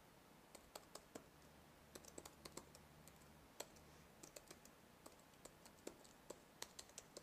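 Faint keystrokes on a computer keyboard, tapped in short irregular runs as a web address is typed.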